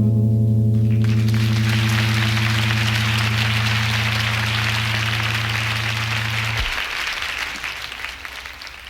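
Concert audience applauding as the band's last low chord of the song holds and then stops about two-thirds of the way through; the applause then fades away.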